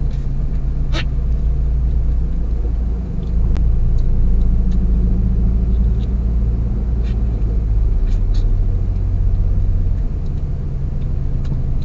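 Car engine idling, a steady low hum heard inside the cabin, its pitch shifting slightly about eight seconds in. A few light clicks come from pineapple pieces being pulled apart by hand.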